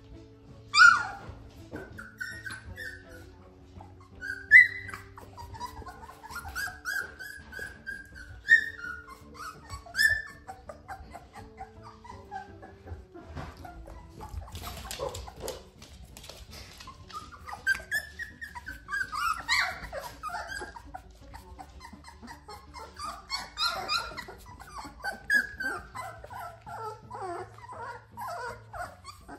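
A litter of young puppies whimpering, whining and squealing, with four sharp, loud yelps in the first ten seconds and a denser run of whines in the second half.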